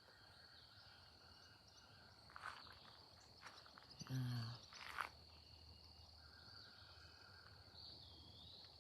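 Faint outdoor insect chorus: a steady, high, even trill of crickets or katydids, with a few soft knocks and rustles.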